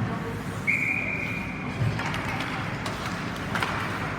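A hockey referee's whistle blown once, a single steady shrill note of about a second, over the noise of an ice rink with a few sharp knocks.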